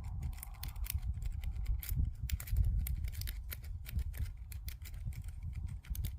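Lock pick rake being worked in and out of a pin-tumbler deadbolt cylinder under tension: a rapid, irregular run of small metallic clicks as the pick scrapes over the pin stacks, with a low handling rumble underneath.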